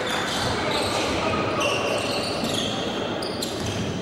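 Live sound of a basketball game in a gym: a ball bouncing on the court, short high sneaker squeaks several times, and indistinct voices.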